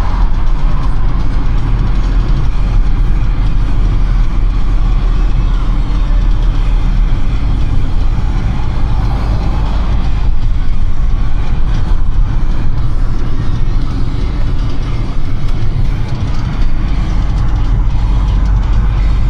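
Car driving at speed, a steady low rumble of engine and road noise.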